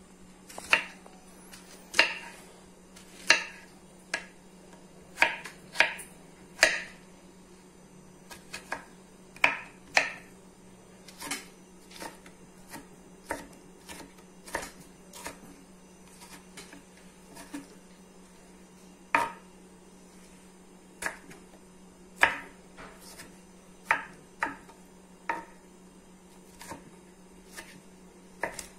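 Kitchen knife slicing and dicing a firm, underripe tomato on a wooden cutting board: irregular sharp knocks of the blade meeting the board, about one a second. A steady low hum runs underneath.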